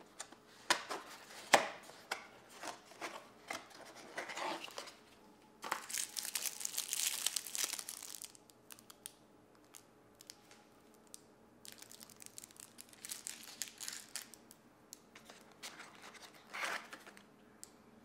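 Plastic packaging of a self-heating hot pot being handled: a few sharp clicks from the red plastic lid near the start, then crinkling and rustling in several bouts as a plastic-wrapped fork and foil ingredient sachets are lifted out of the box.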